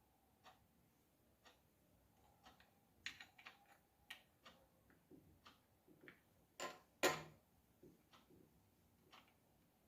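Clock ticking faintly about once a second. In the middle come a run of small irregular clicks and knocks, with two louder clicks about seven seconds in.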